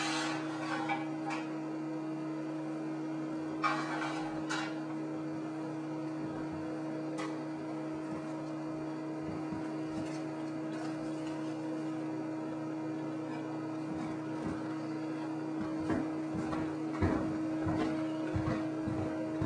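A steady electrical hum, with short clatters of a pan, plate and utensils at the stove near the start and again about four seconds in, and a run of irregular handling noises near the end.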